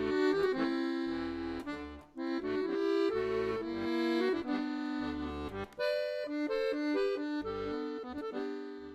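Instrumental music: sustained chords over low bass notes, with a short break about two seconds in, stopping abruptly at the end.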